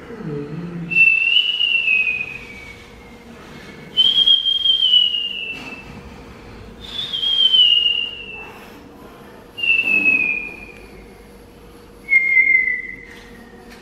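Mouth-whistling in a free vocal improvisation: five high, clear whistled notes, each about a second long and sliding slightly down in pitch, spaced a few seconds apart. A short low vocal sound comes at the very start.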